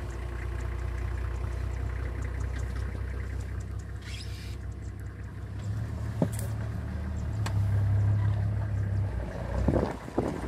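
Safari vehicle's engine running with a steady low hum, rising a little about six seconds in, with a couple of light clicks and some wind buffeting on the microphone near the end.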